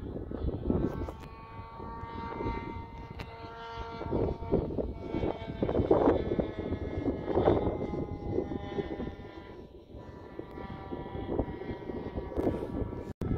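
RC model airplane's engine buzzing in flight, its pitch drifting slowly up and down as the plane moves. Gusts of strong wind rumble on the microphone.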